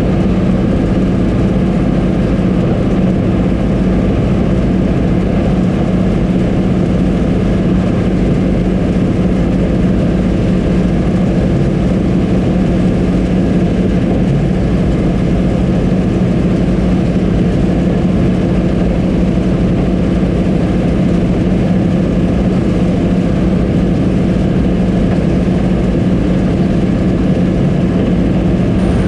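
Combine harvester running steadily under harvesting load: a constant engine and machinery drone with a strong low hum that does not change.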